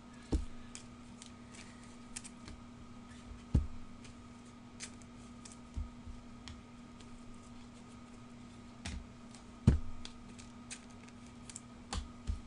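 Trading cards and their packaging being handled on a tabletop: scattered light clicks and taps, with a few louder knocks. A faint steady hum runs underneath.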